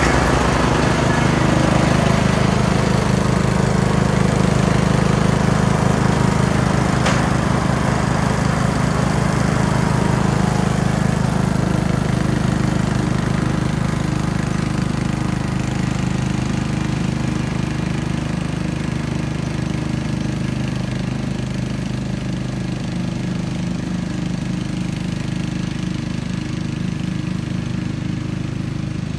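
Simplicity Coronet rear-engine riding mower's engine running steadily while mowing, slowly fading as the mower drives away.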